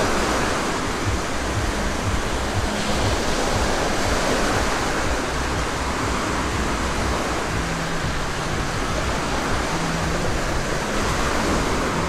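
Small waves breaking and washing up on a sandy beach: a steady rushing surf.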